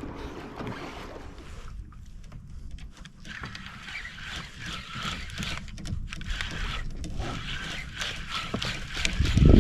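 Water splashing and sloshing against a fishing kayak's hull as it moves on the open sea, with some wind on the microphone.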